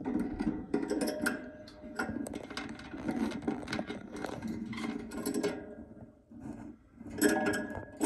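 A budgerigar moving about a wooden nest box right at the microphone: quick scratching, tapping and rustling clicks. It eases off briefly about three-quarters of the way in, then picks up again louder near the end.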